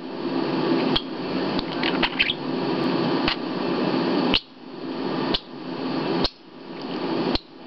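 Pet budgerigar chattering with short high chirps, over a dense rustling and rubbing noise from close handling. The noise builds and cuts off sharply several times, with a sharp click at each break.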